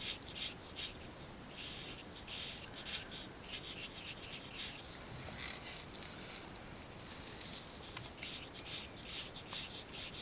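A paintbrush scrubbing watercolour paint onto textured watercolour paper: faint, quick scratchy strokes, several a second, coming in runs with a pause in the middle.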